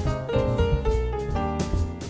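Jazz piano trio playing: grand piano over upright double bass and a drum kit, with repeated cymbal strokes.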